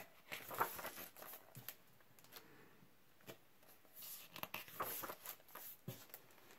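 Paper pages of a hardcover picture book being turned by hand: faint rustling in two bouts, near the start and again about four seconds in, with a few light clicks.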